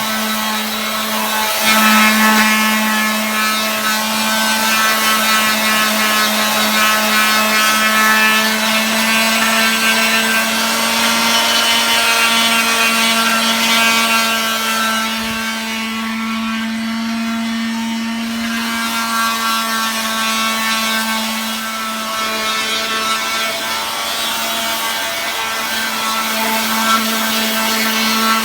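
Handheld electric sander running at a steady pitch while sanding a car wheel. The sanding hiss thins out for a couple of seconds a little past halfway.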